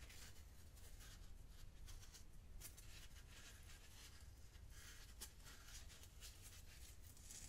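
Faint, soft scratching and rubbing of powdery gym chalk under the fingers as hands grip and turn a chalk-coated figure, in irregular light strokes with a couple of sharper scrapes.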